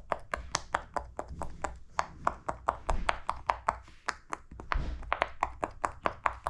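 Silicone pop-it fidget toy bubbles being pressed in one after another, a fast run of short popping clicks at about five a second.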